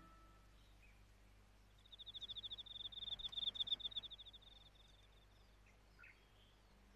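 Cricket chirping: a high, fast-pulsed trill that starts about two seconds in, lasts about four seconds and then tails off.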